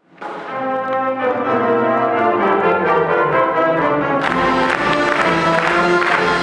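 Brass music swelling in from silence with held, layered chords. About four seconds in, percussion comes in and the sound turns fuller and brighter.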